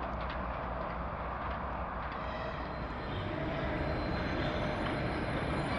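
Moscow monorail train running along its elevated concrete beam: a steady rumbling noise, then from about halfway a whine of several steady tones grows a little louder as a train approaches.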